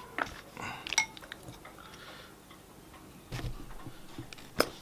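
Quiet, scattered clicks and taps of wooden chopsticks and a plastic squeeze bottle as sauce is squeezed onto a plate of chow mein, with a sharper click near the end.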